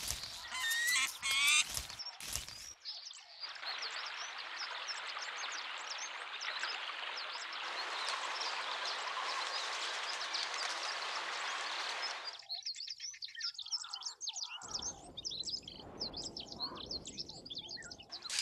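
A flock of birds chirping. Sharp flaps and calls come in the first few seconds, then a dense steady rush of noise thick with chirps for about nine seconds. Scattered chirps follow, over a low rumble in the last few seconds.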